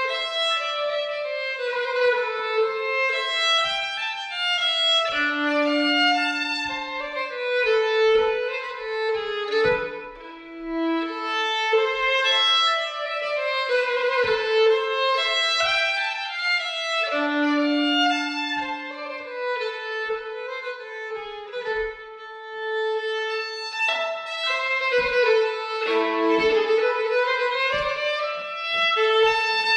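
Solo violin playing a flowing melody, with long held low notes twice along the way.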